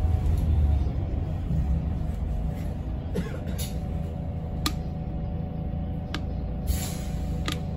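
Inside a single-deck bus on the move: the drivetrain's low rumble drops about a second in and then runs steady, under a faint steady whine. Three sharp clicks come in the second half, and there is a short hiss near the end.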